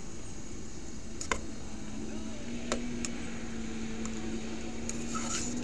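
A utensil stirring chicken strips in sauce in an enamel pot, with a few sharp clicks against the pot, over a steady low hum.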